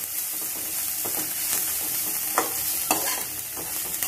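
Sliced onions with turmeric sizzling in hot oil in a non-stick kadai, with a steady hiss. A steel ladle stirs them and scrapes and knocks against the pan several times, loudest about two and a half and three seconds in.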